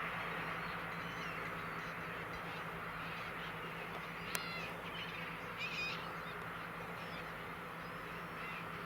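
A large flock of gulls calling over the steady drone of a ploughing tractor's engine, with a couple of louder calls near the middle.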